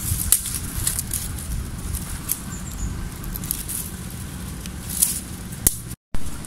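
Dry sticks and twigs crackling and scraping as they are pulled up and gathered by hand, with a steady low rumble underneath. The sound drops out for an instant near the end.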